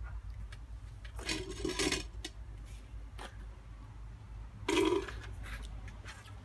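Mouth sounds of wine tasting: wine slurped and swished in the mouth, in two short noisy bursts, one about a second in and a louder one near the end.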